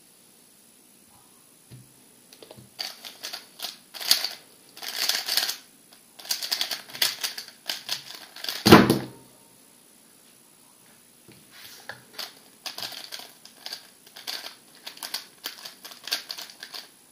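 MoYu RS3 M 2020 3x3 speedcube being turned very fast: rapid runs of plastic clicking and clattering turns, coming in bursts. About nine seconds in there is a single heavy thump, the loudest sound, where the solve ends and the timer is stopped, followed by a short pause before the clicking turns start again.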